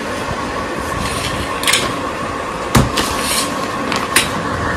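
Metal awning poles knocking and clinking together as they are handled. There are three sharp knocks, the loudest about three seconds in, over a steady background hum.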